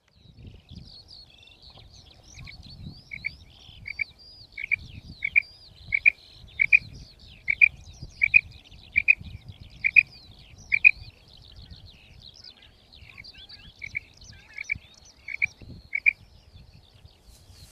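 Female common quail calling: a series of short, evenly spaced notes, about three every two seconds, pausing for a few seconds before a last handful. Fainter higher chirps from other small birds and a low rumble run underneath.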